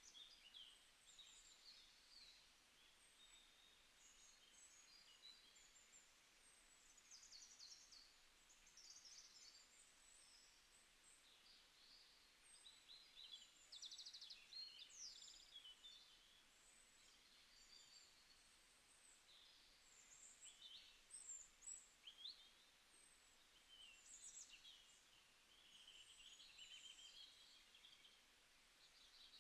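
Faint birdsong: many short, high chirps and trills from several birds, scattered throughout over a light background hiss.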